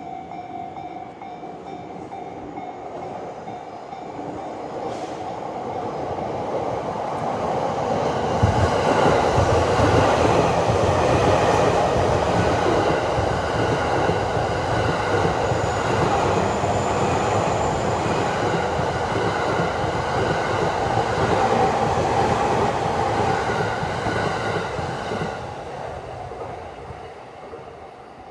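A Joban Line electric train passing over a level crossing. The rumble builds from about four seconds in, stays loud through the middle and fades near the end. The crossing's warning bell rings at the start and again as the train dies away.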